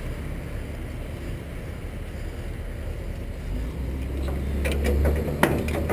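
Low, steady outdoor rumble that grows louder in the last couple of seconds. A few sharp knocks near the end come from the camera being handled and moved on the trailer deck.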